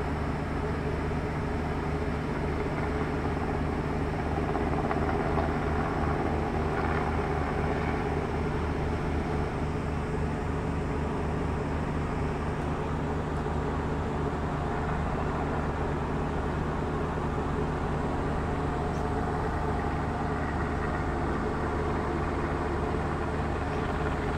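Helicopter circling overhead, its rotor making a steady low drone with a fast rhythmic throb.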